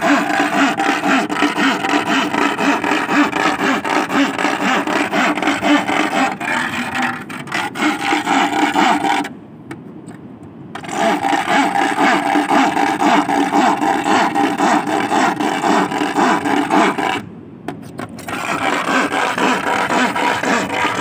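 An iron rod is scraped hard and fast against a curved rusty iron plate stood in wet sand, making a continuous grinding rasp with a ringing buzz. It is the noise used to drive sea worms (sasing) up out of the sand. It stops for about a second and a half near the middle, and again briefly about seventeen seconds in.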